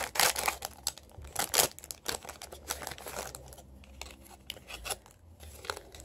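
Scissors snipping open a foil blind-bag packet, with the foil crinkling loudest in the first two seconds, then quieter rustles and small clicks as the bag is pulled open and a clear plastic blister pack is taken out.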